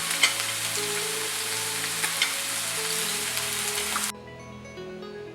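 Meat sizzling and crackling on a Korean barbecue grill, a dense steady hiss with a few sharp pops that cuts off suddenly about four seconds in. Background music plays underneath.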